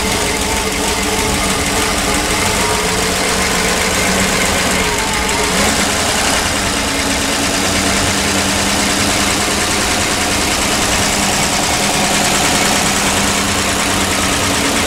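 PAZ-672 bus's petrol V8 engine idling steadily and evenly, with no knock: a calm, smooth GAZ-type V8 sound.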